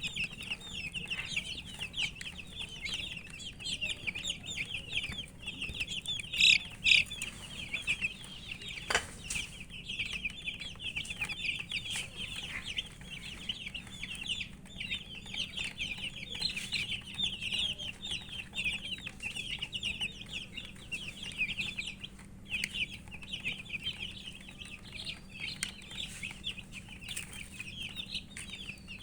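A crowd of baby chicks cheeping continuously, many short high chirps overlapping, with a brief sharp click about nine seconds in.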